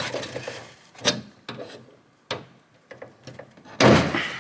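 Plastic clicks and knocks as a washer hose is worked off a windshield washer jet, with a louder rustling scrape lasting about half a second near the end.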